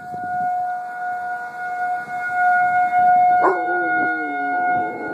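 A siren holds one steady tone. About three and a half seconds in, a dog joins it with a howl that starts high, slides down and wavers.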